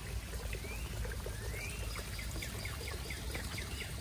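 Water pouring and trickling steadily into a backyard koi pond from a fountain spout. A bird sings over it with a couple of rising whistles, then a quick run of short chirps.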